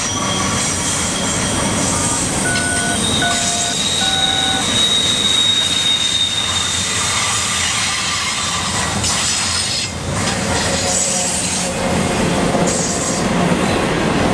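Loaded double-stack container well cars rolling past on a curve: a steady rumble of wheels on rail, with high-pitched flange squeal from the wheels in the curve, strongest from about two to six seconds in.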